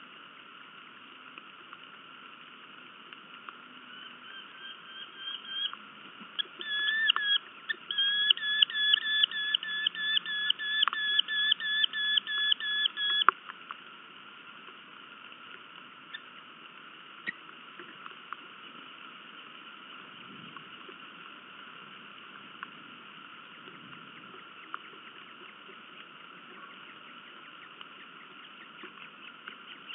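Eurasian hobby calling: a fast run of repeated sharp calls, about two and a half a second, that grows louder and stops abruptly about halfway through. Under it runs a steady hiss of rain.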